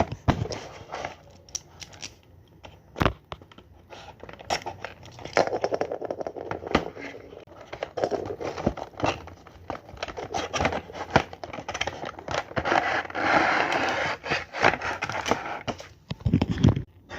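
Sticker packaging being handled and opened: plastic and paper crinkling and rustling with many sharp clicks and taps, busiest about three-quarters of the way in, and a heavier thud just before the end.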